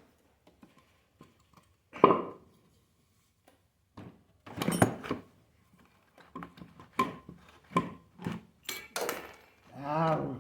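Metal clunks and clinks of a power wheelchair's drive motor being lifted and knocked against the chair frame as it is fitted: a string of separate knocks, the loudest about two seconds in. A brief groan near the end.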